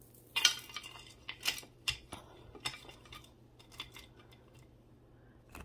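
Costume jewelry clinking and rattling as pieces are handled and set down: a string of light clicks and jingles, the loudest about half a second in.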